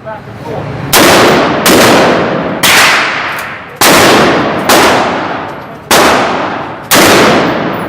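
AR-15 semi-automatic rifle fired seven times in a row, about one shot a second, each shot sharp with a long echo trailing off behind it.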